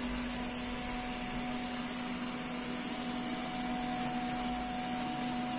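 Yeedi 2 Hybrid robot vacuum running at maximum suction: a steady motor hum with a constant whine over an even rush of air.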